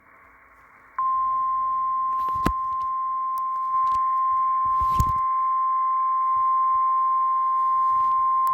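NOAA Weather Radio's 1050 Hz warning alarm tone, a single steady tone heard through a radio receiver, coming on about a second in over radio hiss, with two brief static crackles. It is the weekly test of the signal that automatically activates warning receivers.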